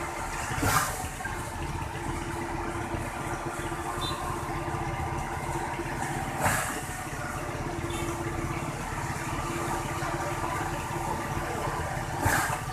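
Concrete mixer truck's diesel engine running steadily, with three short hisses about six seconds apart.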